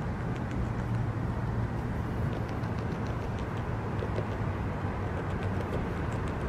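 North American beaver chewing on a twig at close range: scattered small, crisp clicks of gnawing and crunching over a steady low rumble.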